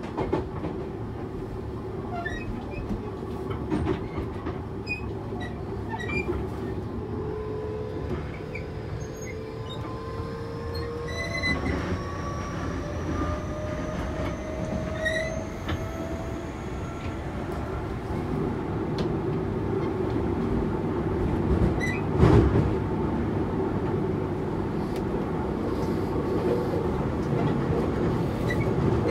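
Interior running noise of a Toei 6300-series early car. The Hitachi GTO-VVVF inverter whine rises in pitch for several seconds as the train accelerates, then fades, over a steady rumble of wheels on rail with scattered clicks. A single sharp knock comes about 22 seconds in.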